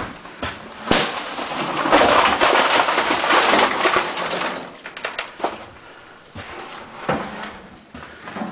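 Broken drywall (gypsum board) pieces tipped from a plastic tub into a metal dump-truck bed: a knock about a second in, then about three seconds of loud crashing and sliding as the load pours out, followed by a few scattered knocks.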